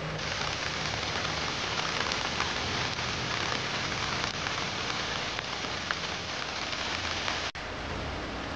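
Rain falling steadily: a dense hiss with scattered clicks of drops. It starts abruptly and cuts off sharply near the end.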